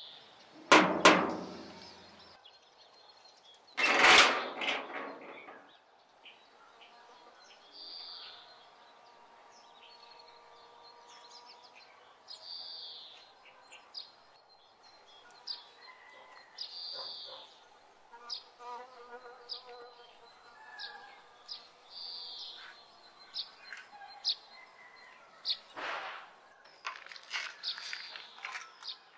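Two loud clattering knocks about one and four seconds in. After them, birds chirp again and again over insects buzzing and a faint steady hum.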